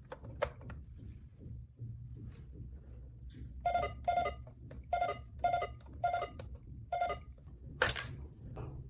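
Toy cash register beeping as its keys are pressed: six short electronic beeps about half a second apart, then one loud sharp clack near the end.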